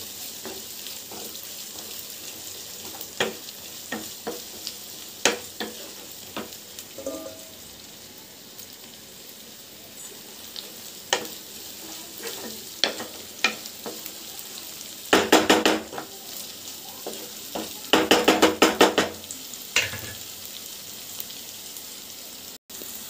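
Sliced shallots and ginger-garlic paste sizzling in oil in a non-stick pan, being frying off the raw ginger smell, with a wooden spatula stirring and scraping through them. About two-thirds of the way in come two short runs of quick, rapid stirring strokes.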